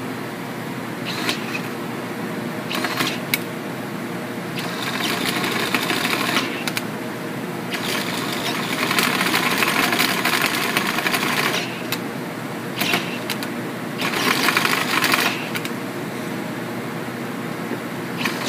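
Milwaukee cordless drill turning a 1 3/4-inch bit into an explosion-proof junction box. The motor runs steadily, and several stretches of loud grinding cut in as the bit bites, the longest from about eight to twelve seconds in.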